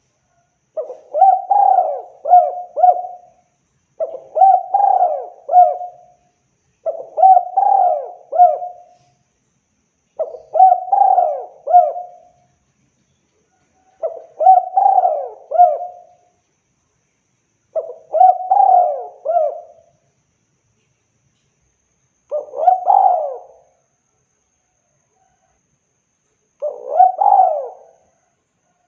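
Spotted dove (tekukur) cooing: eight phrases of three or four notes each, coming every three to four seconds with silence between them. The last two phrases are shorter.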